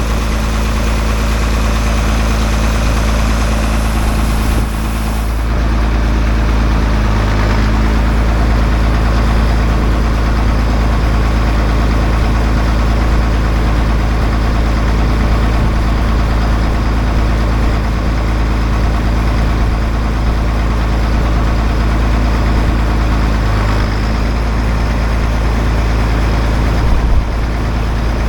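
Heavy farm machinery engine running at a steady speed with a constant low drone. The high hiss drops away about five seconds in.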